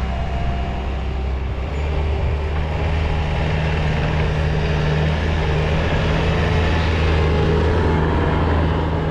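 Skid steer engine running steadily under load while moving snow, picking up a little about two and a half seconds in.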